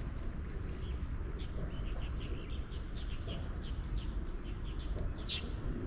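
Small birds chirping: a quick run of short high chirps, about three a second, starting about a second in, then one louder chirp near the end, over a steady low rumble.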